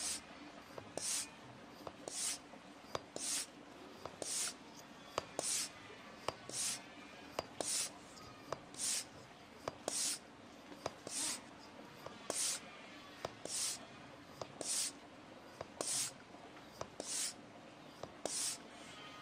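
High-pressure hand pump for air guns being worked at a steady pace, about one stroke a second. Each stroke gives a short hiss of air and a sharp click.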